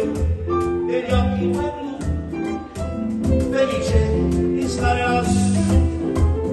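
Live string ensemble of violins and cello playing an upbeat song arrangement over a steady, pulsing bass beat.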